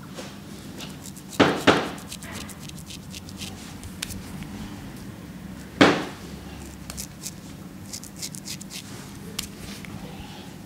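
Cut-throat razor with a disposable blade scraping through lathered beard hair on the neck: a dense crackle of fine, crisp ticks as the blade cuts the hair. There are louder short strokes a little over a second in and again about six seconds in.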